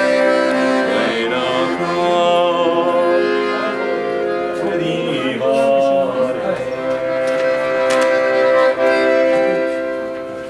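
Accordion playing a Persian song in long held chords, with a voice singing drawn-out phrases over it at times.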